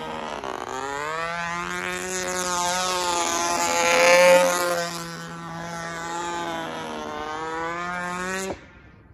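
Control-line model aircraft engine running at high speed as the plane circles the pilot, its pitch rising and falling with each lap and loudest as it passes close about four seconds in. Near the end the engine cuts out suddenly.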